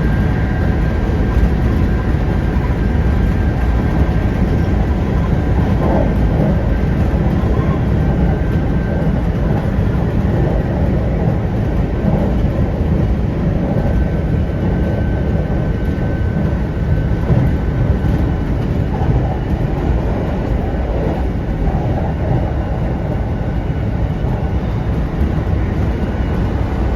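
Kintetsu 1810 series electric train running at speed: a steady rumble of wheels and running gear on the rails. A faint thin high whine comes in twice, near the start and about halfway through.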